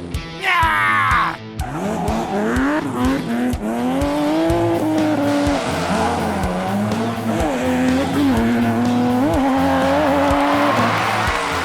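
A vehicle engine revving, its pitch rising and falling, over background music with a steady beat. About a second in, a quick falling sweep like a tire squeal.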